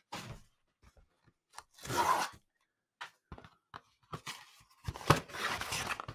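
A brown paper mailer envelope being torn open and handled, in rough bursts of tearing and rustling: one at the start, one about two seconds in, and a longer, louder one from about five seconds in as a small boxed item is pulled out.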